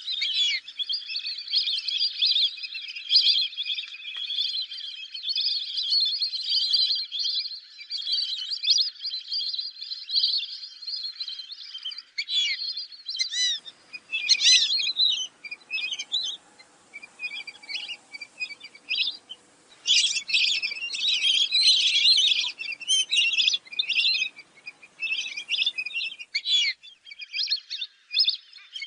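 A flock of fulvous whistling ducks calling with high squeaky whistles, packed together at first, then in separate bursts with short gaps from about halfway in.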